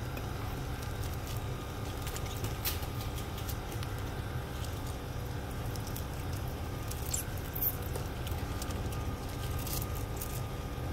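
Sparse light clicks and crackles of live prawns' shells and legs being handled in the hand, over a steady low rumble.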